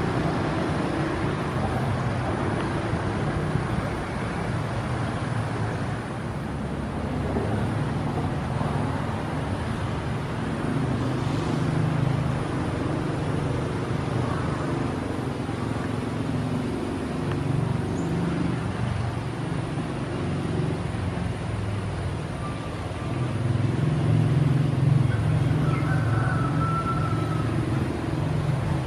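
Low, steady drone of a diesel locomotive engine as the train comes slowly toward the station, swelling somewhat louder about two-thirds of the way through.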